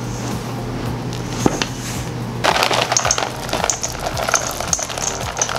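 Spatula folding chunks of dark chocolate into stiff cookie dough in a stainless steel mixing bowl. A single click comes about a second and a half in, then from about halfway a run of quick scraping clicks and taps against the metal bowl, over a steady low hum.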